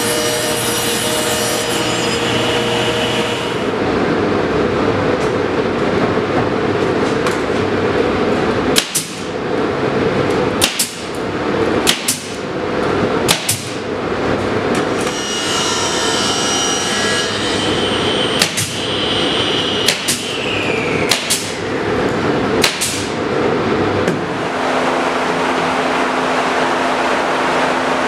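A table saw cutting barn wood for the first few seconds, then a pneumatic nail gun firing about eight times, each shot a sharp crack a second or more apart, over steady machine noise.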